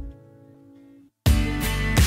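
Background music: a held note fades out, there is a short break about a second in, and then the music comes back in with a steady beat.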